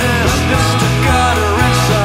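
Country-rock band recording playing, with steady low bass notes under lead notes that bend up and down in pitch.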